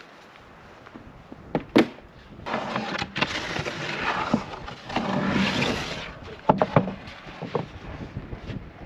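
Plywood panels being handled: a sharp wooden knock near two seconds in, a few seconds of scraping and rustling as a panel is slid and carried, then a few more knocks as it is set down.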